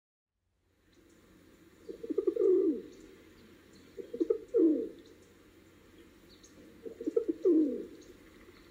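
Rock pigeon cooing: three rolling coos, each ending in a longer falling note, starting about a second in.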